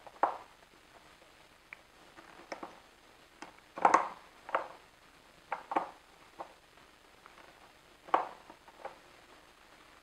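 Irregular light clicks and knocks from a cache key being worked on the tip of a chrome faucet spout, turning to unscrew a recessed aerator. The loudest clatter comes about four seconds in.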